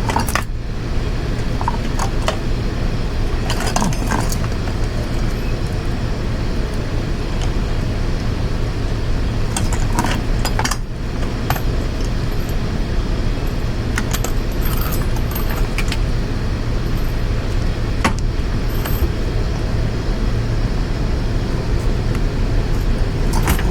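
Scattered light metallic clinks and small knocks of tools and parts being handled while the throttle cable is freed during a motorcycle teardown, over a steady low background rumble.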